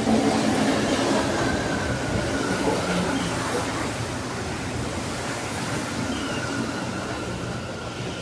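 Rubber-tyred Mexico City Metro Line 1 train rolling past the platform close by: a continuous rolling rumble with a faint high steady whine, easing slightly in loudness.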